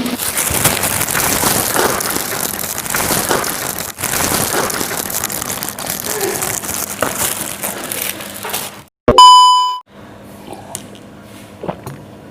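Close-miked eating sounds of meatballs in broth being slurped and chewed, a noisy crackle of small wet clicks. About nine seconds in, a loud electronic ding sound effect sounds once for under a second, followed by fainter clicks over a low hum.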